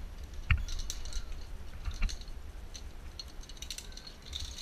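Scattered sharp clicks and light metallic clinks of zip-line harness hardware being handled and clipped on, with two louder knocks about half a second and two seconds in, over a low steady rumble.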